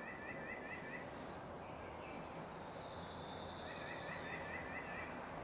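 Faint woodland ambience with small creatures calling: a rapid series of high chirps in the first second and again near the end, and a higher, fast-pulsing trill in between.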